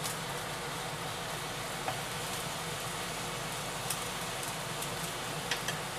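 Chicken, onion, paprika and shirataki noodles sizzling steadily in a frying pan as they are stir-fried with chopsticks, with a few faint clicks.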